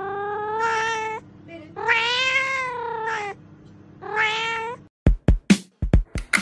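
Domestic cat meowing: three long, drawn-out meows, the middle one the longest. About five seconds in, the meows give way to a run of sharp beats.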